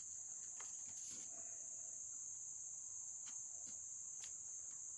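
Faint, scattered clicks of small metal parts of a Victor M phonograph motor being handled during disassembly, about five in all, over a steady high-pitched whine.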